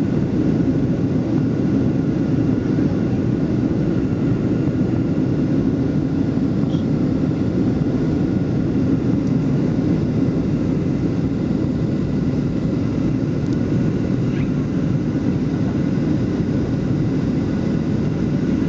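Steady cabin noise inside a Boeing 737 airliner descending on approach: engine and airflow noise, low and even, with faint steady high tones above it.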